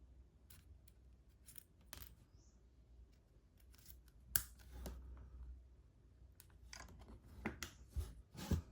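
Small sharp clicks and taps of a SIM card being ejected from an iPhone and its tray and card handled, the loudest click about four seconds in and a cluster of taps near the end.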